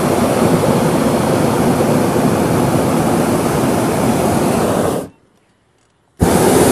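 Hot air balloon's propane burner firing overhead: a loud, steady rushing blast that cuts off about five seconds in, then fires again about a second later.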